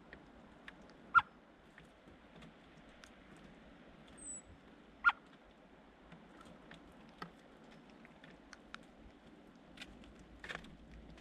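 Birds pecking and hopping at a feeding spot: irregular small taps and clicks, with two sharp louder knocks about one and five seconds in, and one brief high thin chirp about four seconds in.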